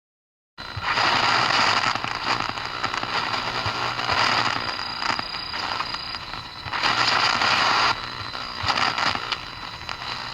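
Loud, dense crackling hiss like heavy static, starting abruptly about half a second in, wavering in loudness and cutting off suddenly at the end.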